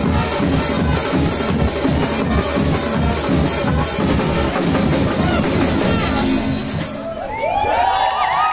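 Marching band playing brass and percussion, trombones and cymbals over a steady drum beat; the music stops about seven seconds in and the crowd cheers.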